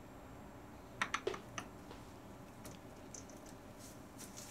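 A quick cluster of three or four light clicks about a second in, then a few fainter ticks: aluminum parts knocking together as the tightly fitted gantry side piece is handled in its machined slot.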